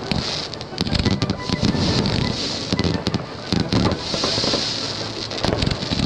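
Fireworks going off: a rapid run of sharp bangs and crackling with a hissing rush that swells twice, over music.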